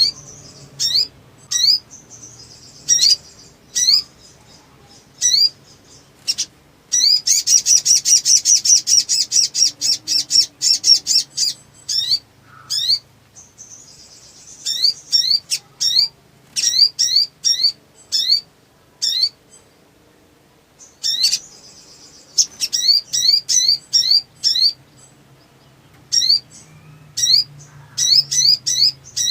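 Little spiderhunter (sogok ontong) calling excitedly: sharp, high, rising chirps given singly and in quick groups, with a rapid run of chirps lasting about four seconds about a quarter of the way in.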